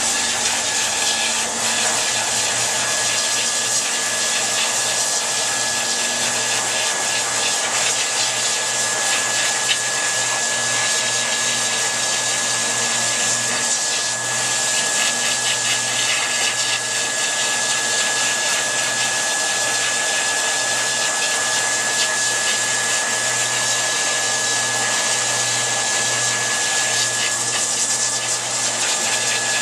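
Pet grooming dryer blowing steadily: a constant rush of air with a steady high whine from its motor.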